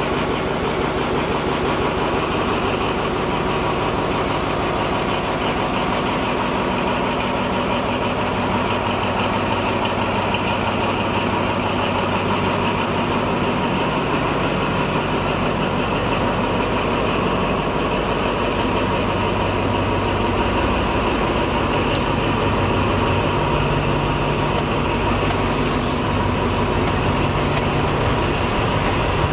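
Diesel-electric locomotive's engine running steadily as it pulls a passenger train away at low speed, with the coaches rolling past.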